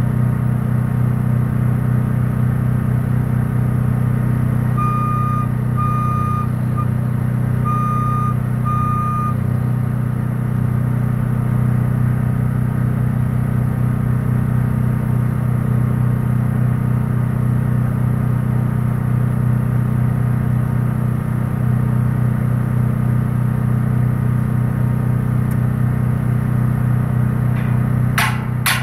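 A truck engine idling steadily with a low, even hum. About five seconds in there is a run of five short beeps. Near the end come a few sharp knocks.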